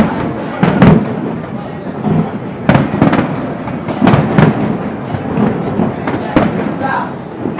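Fireworks display: about ten sharp bangs from bursting fireworks, irregularly spaced and sometimes two in quick succession, over a continuous crackle and rumble.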